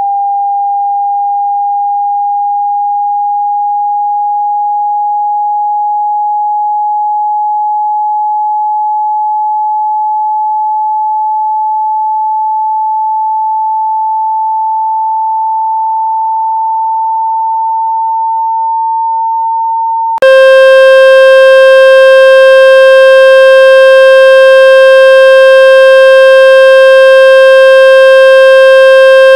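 Water-eject tone for pushing water out of a phone speaker: a pure sine tone whose pitch slides slowly upward. About twenty seconds in it switches abruptly to a louder, harsh buzzing tone at a lower pitch.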